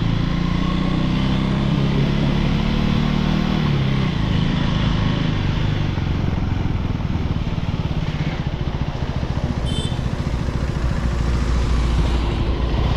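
Motorcycle engine running at low speed as the bike rides along a rough dirt lane, with a steady low engine note; the bike slows near the end.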